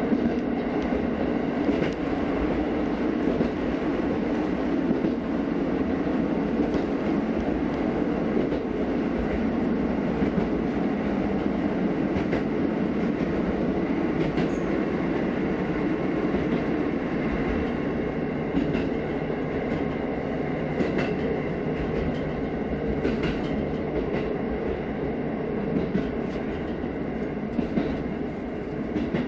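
KiHa 54 diesel railcar running steadily along the line, heard from inside its driver's cab: an even rumble of engine and wheels on rail, with scattered clicks from the rail joints, more of them in the second half.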